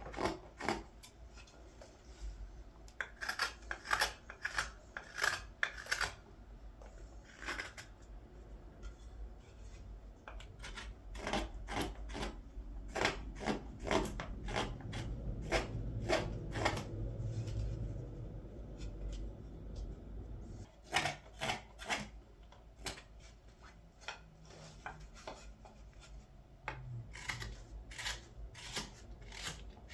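Knife carving green wood: short, crisp slicing strokes that come in irregular runs, sometimes several a second, with pauses between runs.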